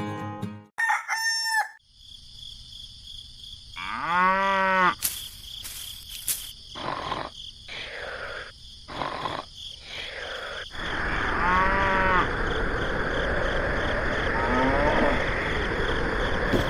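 Farm animal calls, a rooster crowing among them: several separate rising-and-falling calls, with short clicks in between. A steady background hiss comes in about two-thirds of the way through.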